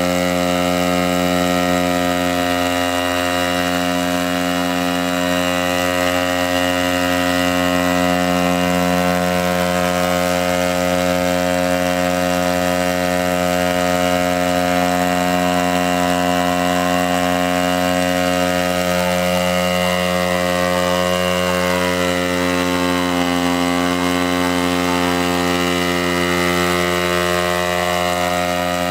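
Hybrid multirotor's 60 cc gasoline engine and propellers running at a steady, even drone while the craft hovers, with no change in pitch or loudness.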